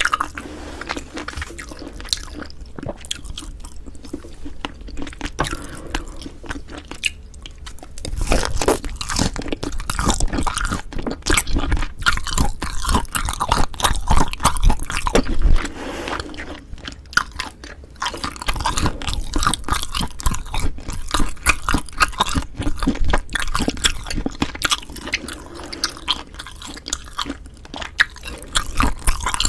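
Close-miked ASMR chewing of a meal of cold spicy mixed noodles and grilled beef rib meat: wet, irregular bites and chews, quieter at first and getting louder and busier about eight seconds in.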